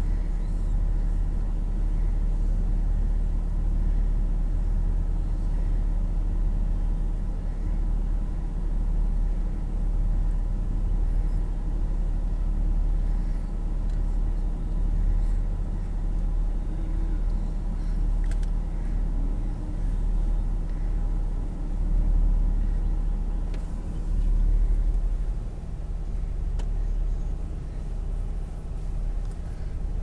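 Car engine running steadily, a low rumble heard from inside the cabin, with a few faint clicks.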